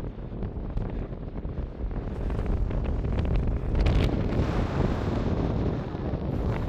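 Wind buffeting the microphone: a steady low rumble that swells and gusts a few seconds in.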